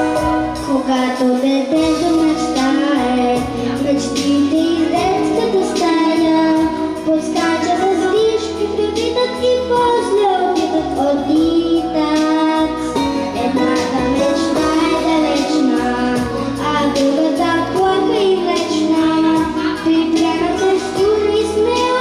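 Children's vocal ensemble singing a song together over instrumental accompaniment.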